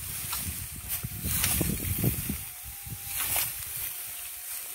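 Dry grain stalks rustling and crackling as they are cut and gathered by hand with a sickle, in short irregular bursts. A low rumble underlies the first half.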